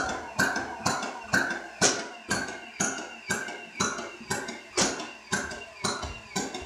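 Nerf minigun firing foam darts in full auto: a steady run of sharp shots, about two a second.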